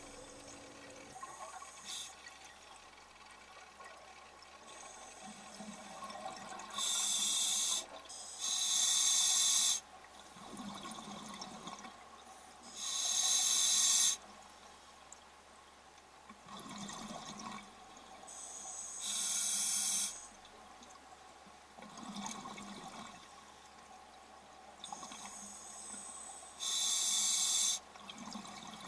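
Scuba diver breathing through a regulator underwater: quiet rasping inhalations alternate with loud, hissing, bubbling exhalations, about five of them spread a few seconds apart.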